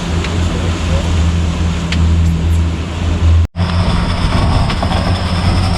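Steady engine drone, running evenly. It breaks off abruptly about three and a half seconds in, and on resuming a high steady hiss joins the drone.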